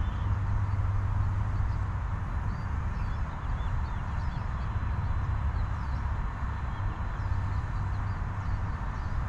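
Wind buffeting the microphone in a steady low rumble, with faint short bird chirps scattered through it.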